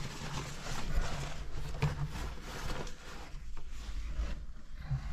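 Close, irregular rustling and scraping of clothing and gear against rock, over a low rumble of handheld camera handling, with a few faint knocks.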